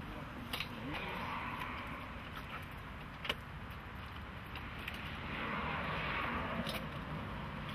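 Outdoor traffic noise, swelling as a car passes in the second half, with a few light clicks and one sharp click about three seconds in as the metal handle of a glass door is worked.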